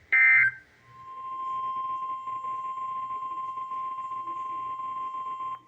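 A short burst of the warbling SAME digital data code, then, about a second in, the steady single-pitched 1050 Hz NOAA Weather Radio warning alarm tone. It swells in, holds for nearly five seconds and cuts off suddenly, the alert signal that precedes a new warning.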